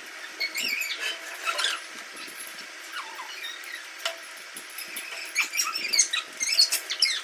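Packaging being handled: a run of scratchy crinkles and short squeaks, busiest about a second and a half in and again near the end.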